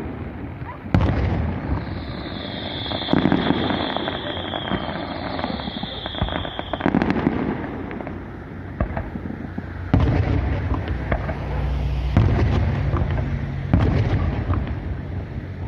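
Fireworks display: aerial shells exploding every couple of seconds, with a high-pitched hiss lasting several seconds in the first half.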